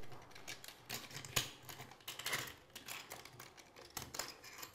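Light, irregular clicks and taps of a steel tape measure being handled against a drain outlet while measuring, with a few sharper clicks about one, two and four seconds in.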